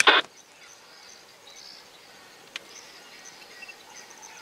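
Quiet bush ambience: a steady high insect drone with a few faint bird chirps. A short noisy burst right at the start and a single sharp click about two and a half seconds in.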